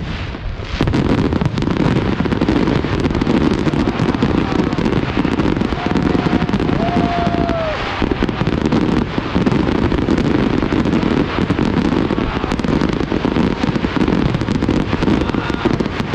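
Fireworks display going off continuously: a dense, unbroken crackle of many small pops and bangs, thickening about a second in.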